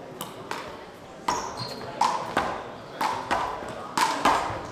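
Handball rally: the rubber ball is struck by hand and smacks off the wall, in sharp pairs of cracks about once a second, each ringing briefly in the hall.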